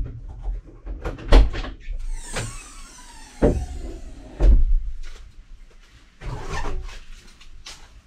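The rear tailgate of a VW T4 van being unlatched and lifted open, heard from inside the hollow cargo area: a run of sharp clunks and knocks, with gliding metallic squeaks as the tailgate swings up. Near the end, smaller knocks as a tyre is pulled from a stack on the metal floor.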